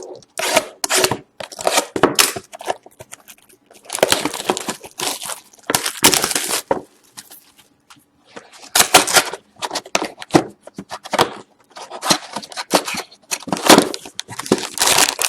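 A sealed trading-card box being opened: plastic wrap crinkling and tearing and cardboard rustling in irregular crackly bursts, with a short pause about halfway through.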